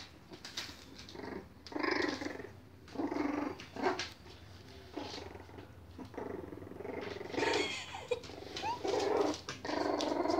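Puppies growling at each other while play-fighting, in short irregular bursts.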